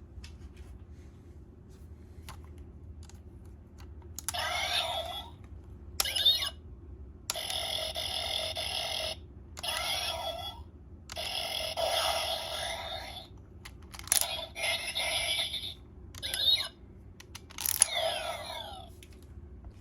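The CSM Gatack Zector belt toy's electronic sound effects, played through its small speaker: a run of ringing, chiming tones and falling sweeps in bursts of a second or two, starting about four seconds in, with a few sharp clicks between them.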